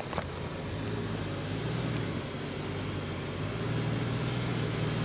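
Off-road SUV engine running as the vehicle crawls up a rocky track, the hum swelling slightly about a second in and again past three seconds, with a few faint clicks.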